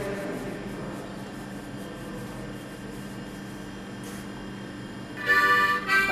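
A steady low hum with faint hiss, then about five seconds in a harmonica comes in loudly on a held chord.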